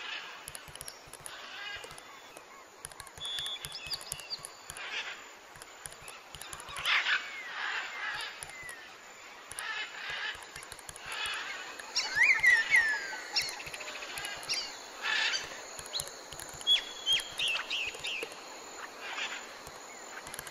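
Birds chirping and calling: short whistled notes and quick downward-gliding chirps over a steady outdoor hiss, busiest about halfway through.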